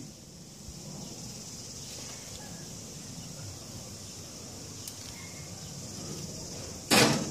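Steady high-pitched chirring of insects such as crickets or cicadas. A brief loud noise breaks in near the end.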